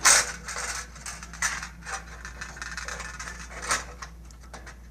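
Handling noise from the tower's frame and its fish wire: a sharp clatter at the start, then scattered clicks and short scrapes.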